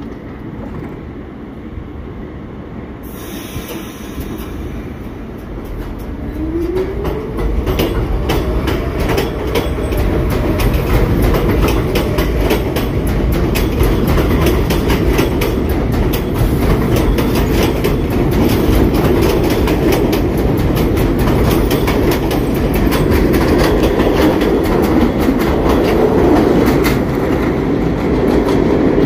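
New York City Subway train pulling away from an elevated platform. A hiss starts about three seconds in, then a rising motor whine as it accelerates. After that comes loud, steady wheel rumble with rapid clicking over the rail joints as the cars pass close by.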